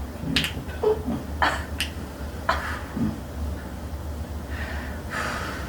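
Joints popping under a chiropractic adjustment: a few sharp cracks in the first half.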